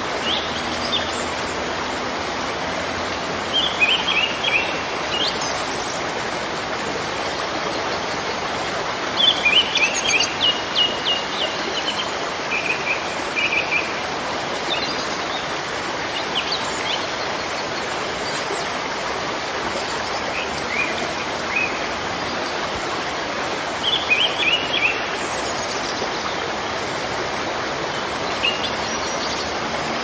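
Steady rush of a forest waterfall, with a few short bursts of rapid, high bird chirps over it, the busiest about a third of the way in.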